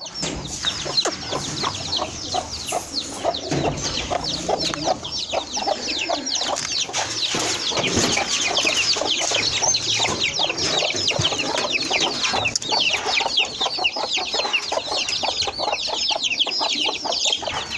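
A flock of chickens calling together: hens clucking, with a dense stream of high, short peeping chirps throughout.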